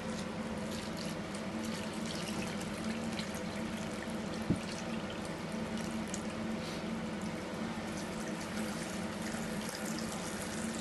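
A thin stream of water pouring steadily into a plastic basin of ground meat and onion, adding a weighed amount of water to the mince, over a steady low hum. One brief knock about four and a half seconds in.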